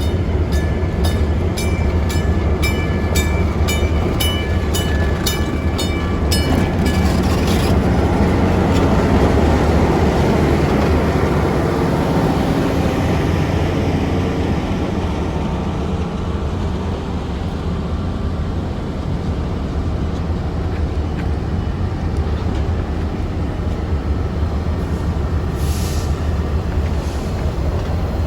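Diesel locomotive and train running by with a steady low engine rumble. A bell rings about twice a second for the first seven seconds or so, then the sound swells as the train passes and eases off.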